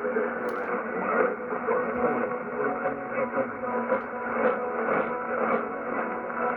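Sangean HDR-15 radio tuned to the distant WHO 1040 AM signal as it fades out: a muffled rush of noise and static, with a weak, garbled voice from the tornado-warning relay buried underneath.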